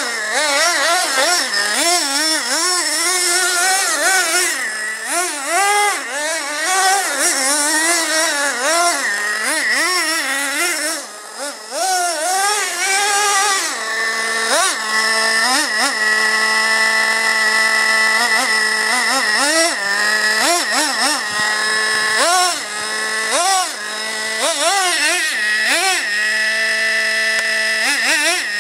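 Traxxas Revo 2.5 RC monster truck's 2.5 cc nitro engine, revved up and down again and again so that its pitch keeps rising and falling about once a second. It holds a steady pitch for several seconds about halfway through, and again briefly near the end.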